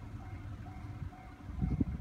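Railway level-crossing alarm ringing, a repeating electronic ding about twice a second, over a low rumble, with a few low thumps near the end.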